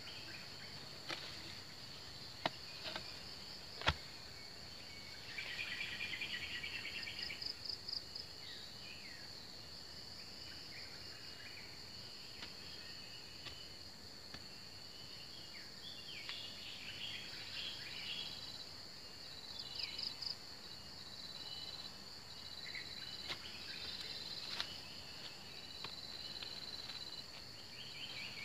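Steady high-pitched buzzing of an insect chorus, with bursts of rapid chirping every several seconds. A few sharp knocks come in the first four seconds, the loudest about four seconds in.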